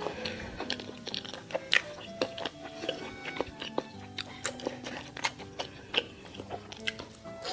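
Close-miked chewing and biting of food, with many short, irregular crunchy clicks, over soft background music.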